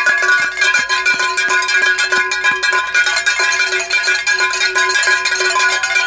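Cowbells ringing steadily: several bells at different pitches clanking about four times a second.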